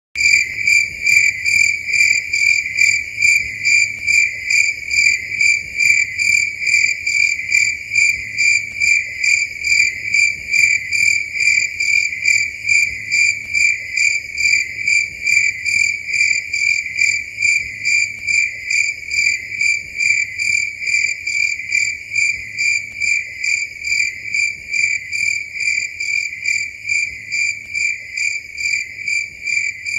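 A cricket chirping in a steady, even rhythm of about two chirps a second, each chirp a single high ringing tone.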